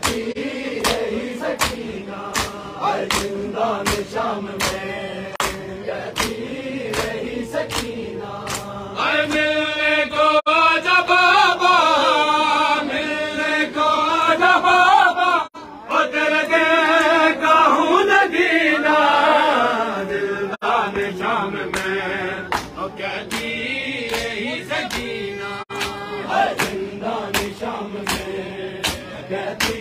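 Mourners' matam: open-hand slaps on bare chests in a steady beat of about two a second, under a group chanting a noha. About nine seconds in the slaps stop and the singing grows louder, with a wavering voice. The beat returns about twenty-two seconds in.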